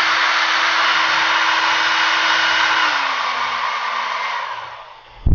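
Feekaa ionic hair dryer blowing on its cool setting: a steady rush of air over a motor hum. About three seconds in, the motor slows with a falling hum and the air fades out over the next two seconds as it spins down. A thump comes at the very end.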